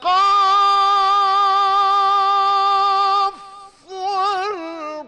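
A male Quran reciter chanting in a melodic style: one long note held steady for about three seconds, then, after a short break, a shorter phrase with wavering ornaments.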